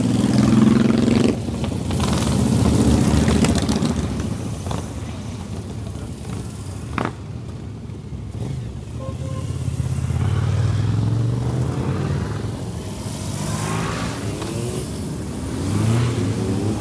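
A procession of motorcycles riding past one after another, each engine's note swelling and fading as it passes, with the loudest passes about a second in, around three seconds in, around eleven seconds in and near the end.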